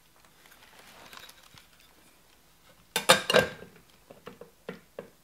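Clicks and knocks of a door mirror glass being handled and pressed into its plastic mirror housing. A short cluster of louder knocks comes about three seconds in, followed by several faint ticks.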